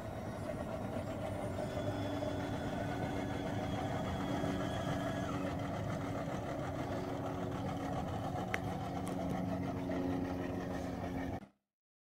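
Steady engine-like rumbling drone with a low hum, cutting off abruptly near the end, with a single sharp click partway through.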